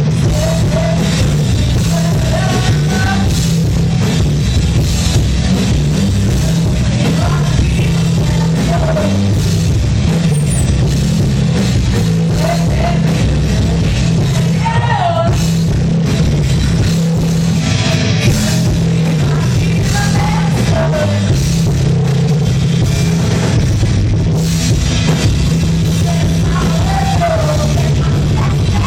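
Loud rock music: a full band with drums and electric guitar, and a voice singing phrases over it throughout.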